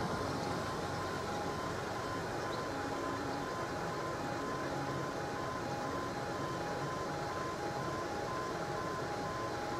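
Level crossing's E2S audible warning alarm sounding quietly, a steady two-tone warble alternating rapidly between two pitches, while the barriers are down. A car pulls up and idles at the lowered barrier underneath it.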